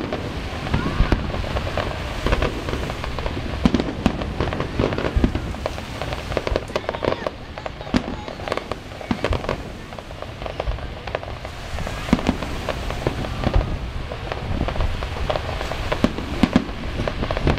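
Aerial fireworks display: many shells bursting in quick, overlapping succession, a dense run of bangs with crackle between them.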